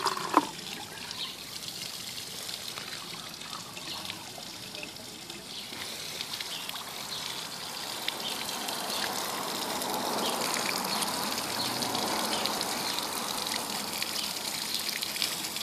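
Water trickling and splashing through a DIY PVC Herbie-style aquarium overflow, pouring from its outlet pipe onto pavement. The flow grows louder from about halfway through.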